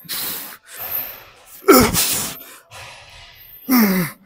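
A man exhaling hard and groaning with strain, two voiced groans falling in pitch between sharp breaths, as he forces out the last reps of a heavy dumbbell set.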